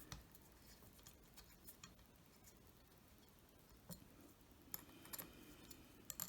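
Near silence with a few faint, scattered clicks of a small Allen wrench working the screws on a metal belt buckle.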